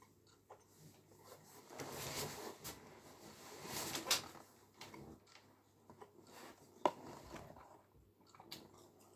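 Quiet eating sounds: soft chewing and scraping with a few sharp clicks of cutlery, the sharpest about seven seconds in.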